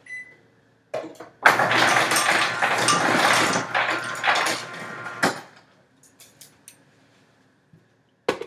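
Ice cubes clattering out of a refrigerator's door ice dispenser into a cup, a dense rattle lasting about four seconds that starts and stops abruptly, followed by a few small knocks.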